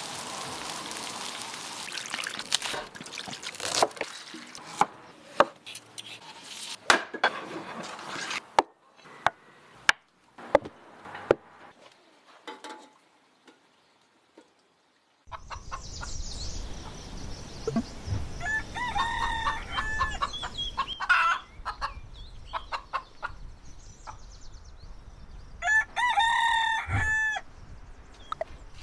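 Oil sizzling and a fire crackling under a pan of frying anchovies, with many sharp pops, for the first twelve seconds or so. After a short near-silence, hens cluck in the background and a rooster crows once near the end.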